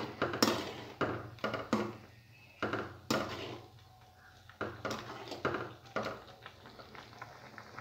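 A metal ladle stirring thick kheer in a metal pan, knocking and scraping against the pan in irregular strokes with short quiet gaps between them.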